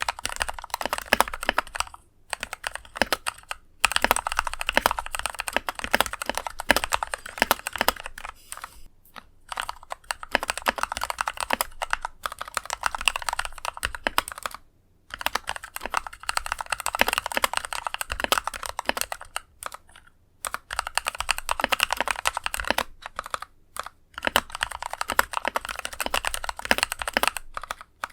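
Typing on an NK65 mechanical keyboard with Kailh Pro Burgundy linear switches lubed with Krytox 205g0: quick runs of key strikes with a deep thonk and some scratchiness, broken by several short pauses.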